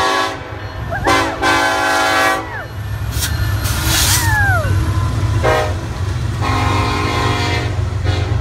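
A BNSF freight train's diesel locomotives pass close by with a steady low rumble, sounding their multi-chime air horn: the end of one blast at the start, a longer blast about a second in, a brief toot around five and a half seconds and a long blast near the end. A person whoops between the blasts with rising-and-falling cries.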